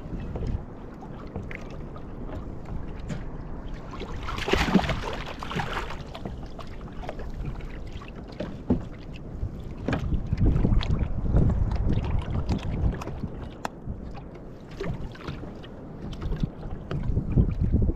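Fishing kayak on the ocean: water moving against the hull and wind rumbling on the microphone, with scattered light knocks. A brief louder hiss comes about four to five seconds in.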